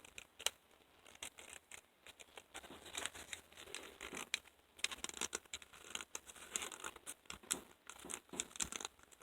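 A freshly cut paper gasket being handled and fitted over the engine, rustling and crinkling in a quick run of small scrapes and clicks.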